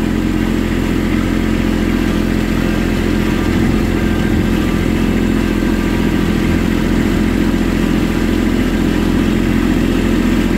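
Kubota B2501 compact tractor's three-cylinder diesel engine running steadily as the tractor drives across a field, heard close up from the driver's seat.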